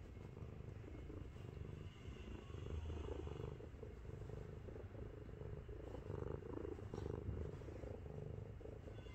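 Heavy 7.5 kg white-and-orange domestic cat purring close up: a deep, rumbling, tank-like purr that swells and eases steadily with its breathing.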